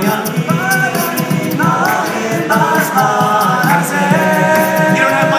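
Male a cappella group singing live in close harmony, holding chords that shift in pitch every second or so, over a steady clicking beat, amplified through handheld microphones and stage speakers.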